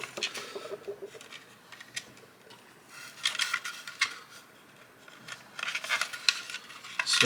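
Small plastic parts and wiring being handled and fitted together: scattered light clicks and rustles in a few short clusters, most around the middle and near the end.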